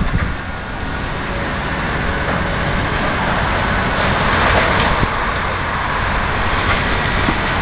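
Heavy demolition machinery running steadily, an engine rumble under a dense noisy rush, with a few faint knocks.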